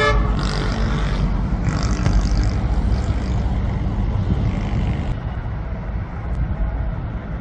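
Diesel coach buses and a truck running as they move along the road, a steady low engine rumble with traffic noise.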